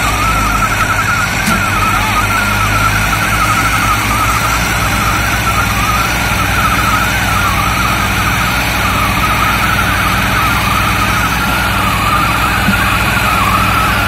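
Swaraj 744 and Farmtrac 60 diesel tractor engines working hard under load, pulling against each other in a tug-of-war with rear tyres spinning in the dirt: a loud, steady engine drone. A wavering high warbling tone runs over it.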